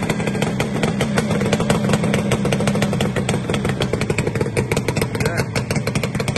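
1979 Yamaha RD250E's air-cooled two-stroke parallel-twin engine running steadily, with a fast, crackly exhaust beat.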